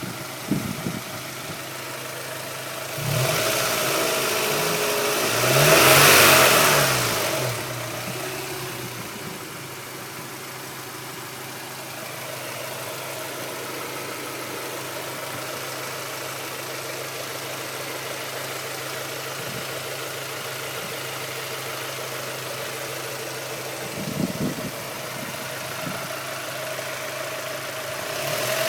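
Honda Prelude H22A5 2.2-litre four-cylinder engine idling with a rattle. It is revved once, rising from about three seconds in, peaking around six and dropping back to idle by about eight. The owner has already had the valve lash adjusted and suspects a failing lost motion assembly, a failing timing-belt tensioner or bent valves.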